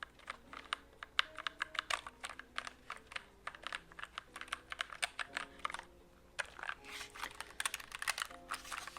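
Typing on a low-profile mechanical keyboard with red switches: quick, irregular runs of key presses, with a short pause about six seconds in.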